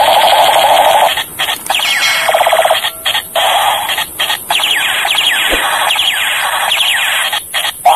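Electronic sound effect from a toy AWM sniper blaster's speaker: a loud, harsh hiss that stops and starts several times, with rapid falling laser-like tones running through it.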